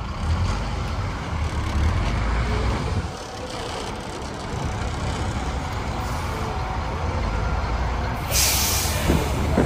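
Sightseeing bus engine rumbling in city traffic, with a short hiss of air brakes being released near the end.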